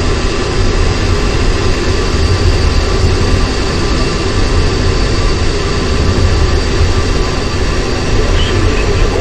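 Soyuz-FG rocket engines in first-stage powered flight: a steady, loud, unbroken rumble heavy in the deep lows, with a few thin steady tones running over it.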